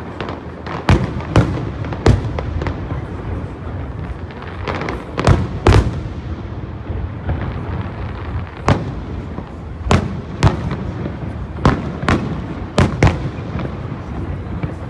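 Aerial fireworks display: shells bursting in a string of sharp bangs, about a dozen, over a continuous rumble and crackle of further bursts.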